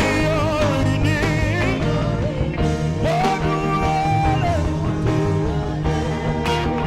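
Saxophone playing a gospel worship melody with vibrato, holding one long note partway through, over a backing band with bass and drums.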